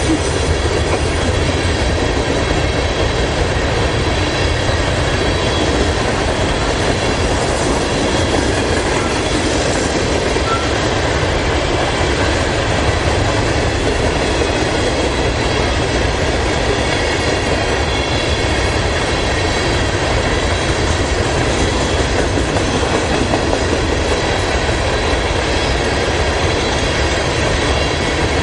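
Freight train of covered hopper cars rolling past: a steady, unbroken rolling noise of steel wheels on rail.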